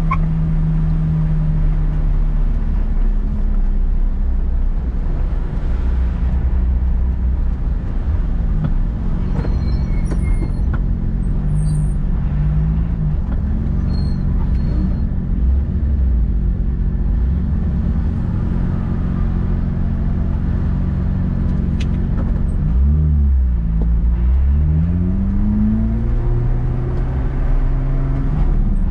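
Lotus Exige engine running at steady revs under way. About twenty-three seconds in, the revs drop briefly and climb again.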